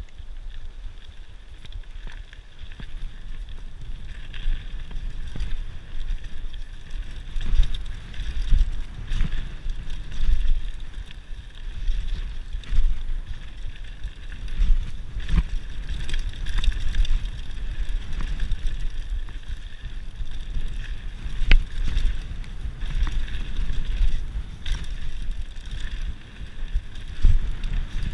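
Mountain bike rolling fast down a loose gravel trail: wind buffeting the camera microphone and tyres grinding over stones, with frequent sharp clattering knocks from the bike and rocks. The rumble builds over the first few seconds as speed picks up.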